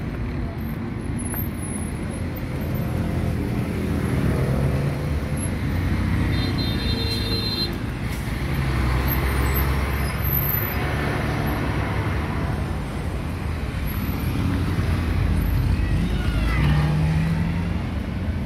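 Road traffic in a busy intersection: car and truck engines running and tyres on the road, swelling and easing as vehicles pass close by. A brief high-pitched tone sounds about six seconds in.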